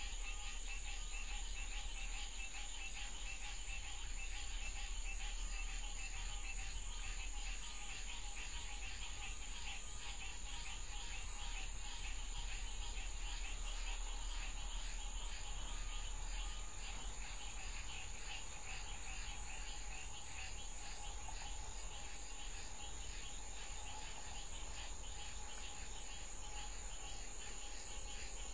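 Crickets and other night insects chirping in a steady, unbroken chorus, picked up by a security camera's microphone, with a low steady hum underneath.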